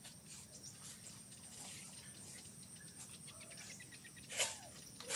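Steady high-pitched drone of insects, with faint scattered ticks and one short, sharp call about four and a half seconds in.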